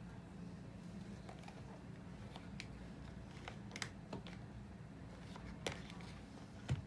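Plastic acrylic paint tubes being shuffled and set down on a wooden tabletop: scattered light clicks and taps, the loudest a knock near the end, over a low steady hum.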